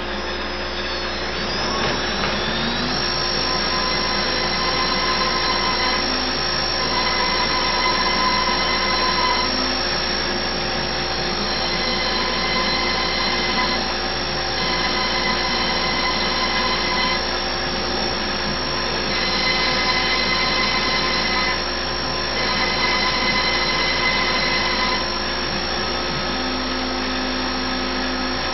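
CNC router spindle running steadily while the machine countersinks holes in a spoil board. The level rises about two seconds in, and a higher tone comes and goes in stretches of a few seconds, about six times, as the head works from hole to hole.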